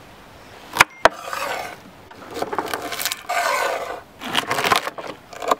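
Kitchen knife chopping red onion on a wooden cutting board, in about five bursts of quick strokes with short pauses between. Two sharp knocks come about a second in.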